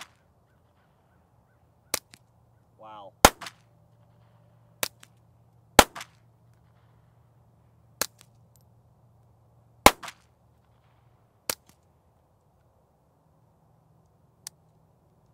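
Suppressed .22 LR pistol shots from Ruger Mark-series 22/45 pistols firing subsonic CCI Standard Velocity rounds: seven sharp pops one to two seconds apart, alternating between softer and louder reports.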